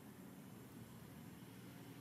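Near silence: faint, steady background noise with no distinct events.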